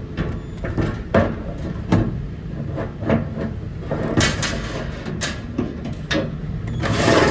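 Irregular knocks and clunks of cabinet panels being handled and fitted together, over a steady low hum.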